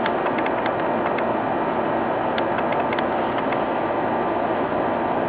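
Steady machine-like background noise with a few faint, light clicks scattered through it.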